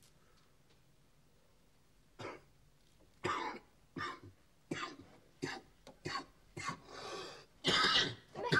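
A person coughing: a run of short, harsh coughs starting about two seconds in, roughly two a second, the last ones the loudest.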